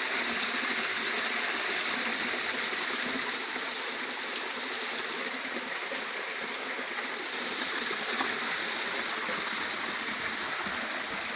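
Water rushing steadily, the even sound of a flowing stream.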